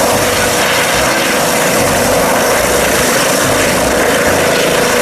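Helicopter running: a loud, steady rush of engine and rotor noise with a constant hum through it.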